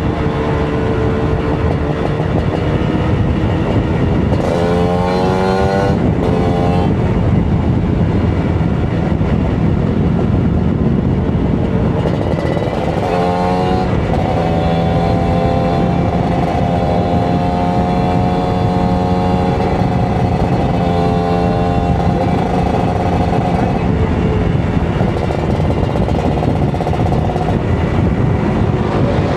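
Kawasaki Ninja 150 RR's two-stroke single-cylinder engine under way. Its revs climb quickly about five seconds in and again about thirteen seconds in, with long steady stretches at cruising speed between.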